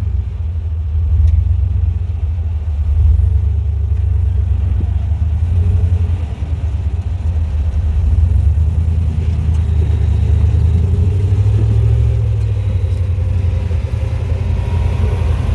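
Off-road 4x4's engine running under load at crawling speed, a steady low rumble.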